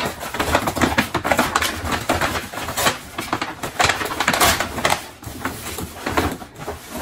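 Paper gift bag and tissue paper rustling and crinkling in a dense, irregular run of crackles as a gift is dug out of the bag, easing off a little about five seconds in.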